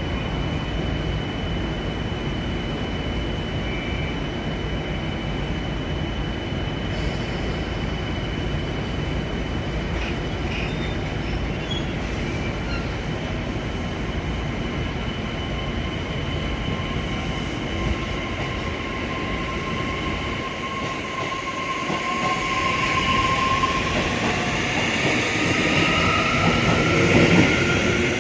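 A train at a station: a steady low rumble, then, over the last several seconds, high squealing tones from the train that slide in pitch and grow louder.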